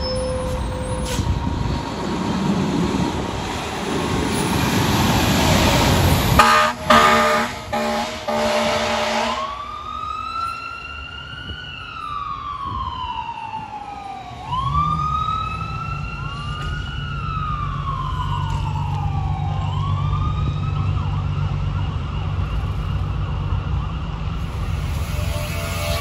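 Fire engine's air horn blasting a few times, then its siren wailing in long, slow sweeps that rise and fall, over a steady low drone from about halfway.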